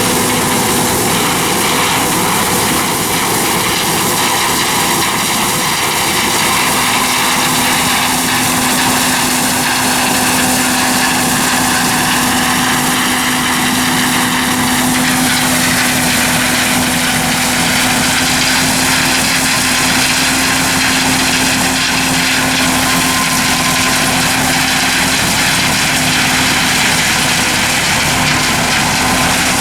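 Vehicle engine running steadily, a continuous drone whose pitch shifts slightly about halfway through.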